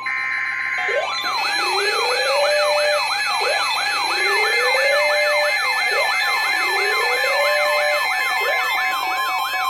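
Electronic siren sounds layered together, starting about a second in: a fast sweeping wail about three times a second over a slower rising tone that repeats about every two and a half seconds, with a steady high tone underneath.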